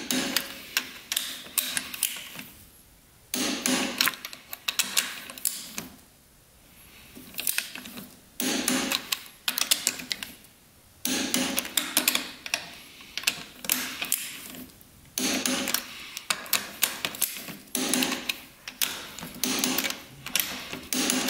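Ratchet torque wrench clicking in repeated bursts of quick ratchet strokes, with short pauses between, as the two-stroke's cylinder head nuts are tightened to 18 foot-pounds.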